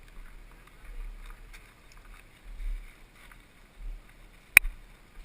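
Low, gusting rumble of wind buffeting the microphone, with one sharp click about four and a half seconds in.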